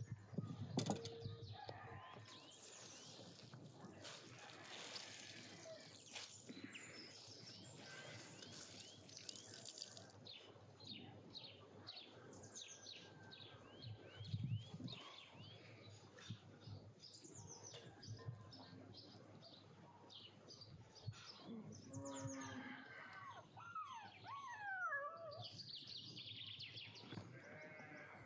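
Quiet outdoor birdsong, with runs of quick falling chirps. Now and then come soft knocks and rustles of a cloth and a glass bowl being handled on a table, and near the end a louder call slides down in pitch.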